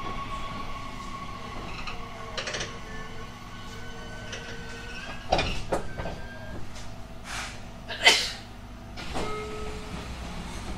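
Passenger sliding doors of a JR Kyushu 817 series electric train working at a station stop, heard from inside the car: a few sharp knocks and hisses, the loudest about eight seconds in, over the stopped train's steady hum.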